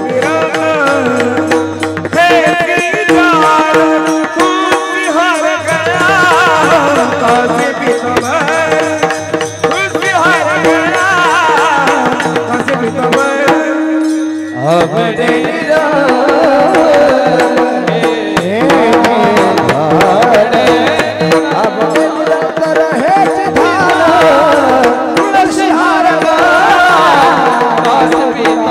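Marathi Warkari kirtan singing: a man's voice sings a devotional verse in long ornamented phrases, accompanied by mridang drumming and steady held notes underneath. About halfway through, the accompaniment briefly drops out before the singing and drumming pick up again.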